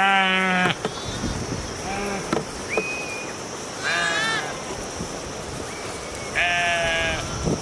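Sheep in a herd bleating, four separate calls: a loud one at the start, a weaker one about two seconds in, a higher wavering one around four seconds, and another near the end.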